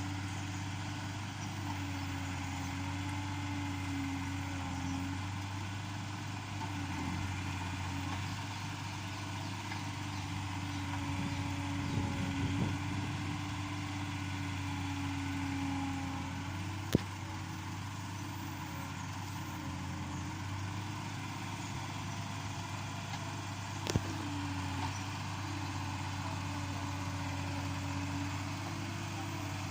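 Yanmar B37 excavator's diesel engine running steadily, with a tone above the engine that shifts a little in pitch as the machine works. Two sharp knocks sound in the second half.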